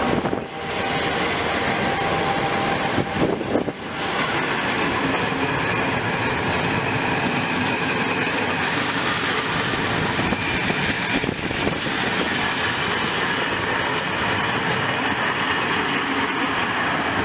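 A train of old red DSB passenger coaches rolling past, steady and loud, with its wheels clattering on the rails.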